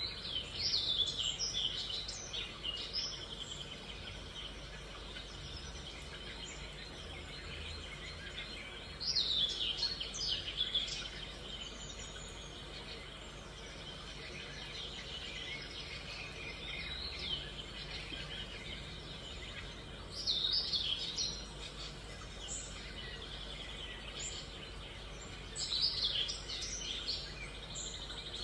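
Birds chirping in several short bursts of a second or two each, over a steady background hum.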